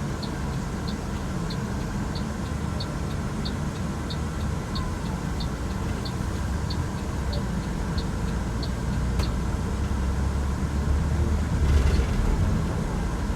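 Road vehicle driving, heard from inside: a steady low engine and road rumble that swells near the end. A light regular ticking, about one and a half ticks a second, runs through the first two-thirds and then stops.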